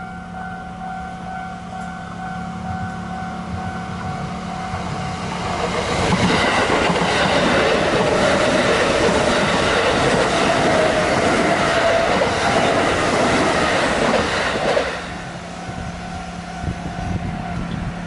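Kintetsu Nara Line electric train running through a level crossing, its wheels loud on the rails from about five seconds in until the sound drops away sharply about fifteen seconds in. The crossing's warning bell rings steadily before and after the train.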